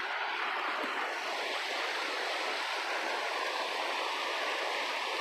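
Mountain creek water rushing steadily over rocks, an even wash of flowing-water noise.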